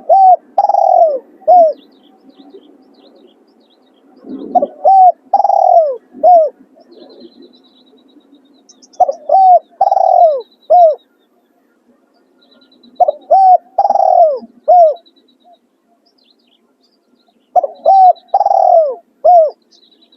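Spotted dove cooing: five repeated calls about four seconds apart, each a couple of short notes, a long falling coo and a short closing note.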